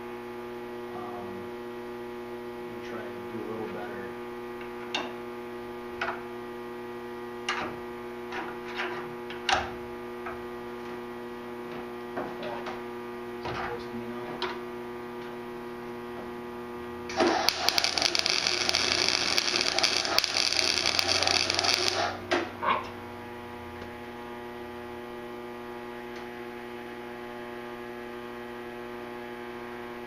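Electric arc welder laying a bead: a steady crackling hiss for about five seconds that ends in two short sputters. Before it come a few light metal taps, and a constant electrical hum runs underneath.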